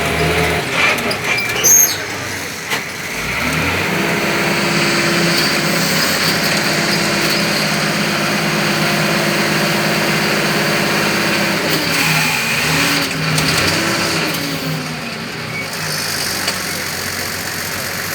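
Diesel engine of heavy construction machinery running steadily, its pitch dipping and rising again about twelve seconds in. A few sharp knocks near the start.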